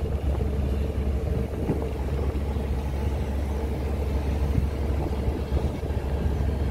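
The cargo vessel's engine running steadily under way, a continuous low drone with a faint steady hum above it.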